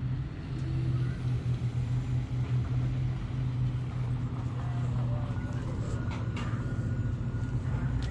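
Large diesel engine running steadily at idle, a constant low hum, with a few faint clicks about six seconds in.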